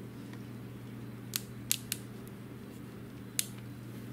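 Klein ratcheting crimper squeezing a terminal onto a wire: four sharp clicks, three close together in the first two seconds and one more a second and a half later, over a steady low hum.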